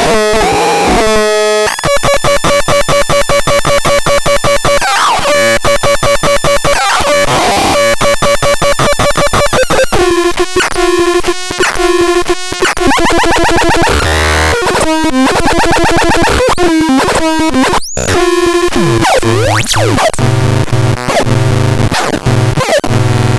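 Electronic synthesizer playing harsh, buzzy tones with fast pulsing and pitch glides. In the last few seconds a deep bass note switches on and off about once a second.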